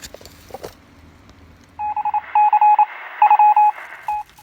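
A quick, uneven run of short electronic beeps at two steady pitches, starting about two seconds in and lasting about two and a half seconds.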